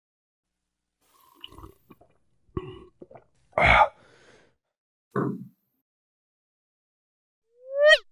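Dubbed-in drinking sound effects: a run of short slurps and gulps, the loudest about halfway through, as the wine glass of blue drink is emptied. A short rising cartoon-style tone near the end.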